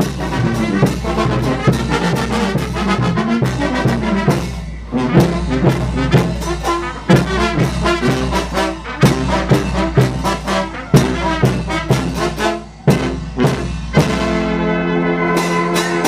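Live Mexican brass band (banda) playing: trumpets, trombones and tuba over bass drum and cymbal strikes. Near the end the band holds one long sustained chord.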